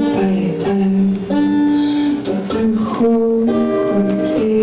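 Acoustic guitar being strummed and picked through a chord progression in an instrumental passage of a live song, the chords changing every half second to a second.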